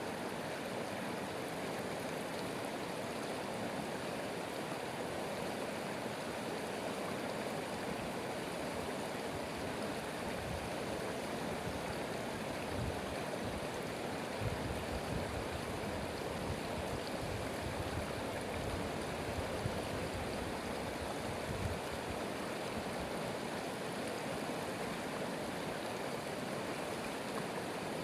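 Stream water running steadily, with a few low rumbles through the middle.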